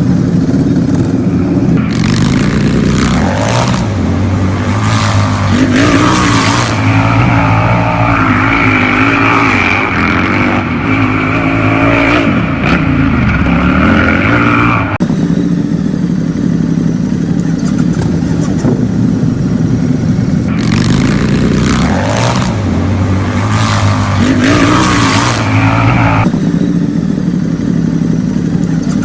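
Motorcycle-style engine sound effect running steadily, with two long stretches of revving, from about 2 to 15 seconds in and from about 21 to 26 seconds in.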